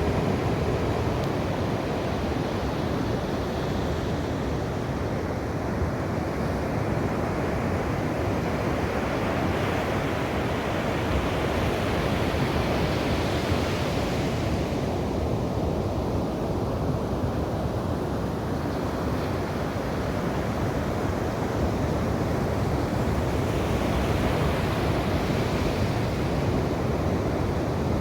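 Ocean waves breaking and washing on a shore, a continuous rushing surf that swells and eases slowly, twice rising to a brighter wash.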